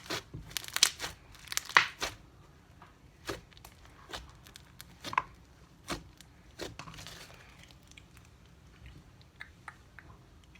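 Slime crackling as it is squeezed and pressed: sharp pops and clicks, packed close in the first two seconds, then sparser and fainter.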